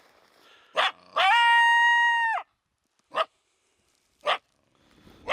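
Trapped coyote vocalizing: a short yelp, then one drawn-out high howl of about a second that falls off at its end, followed by three short barks about a second apart.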